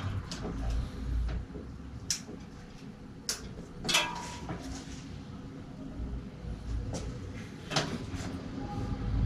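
Scattered clicks and knocks from a bicycle wheel and parts being handled at a workshop bike, the loudest about four seconds in, over a low steady hum.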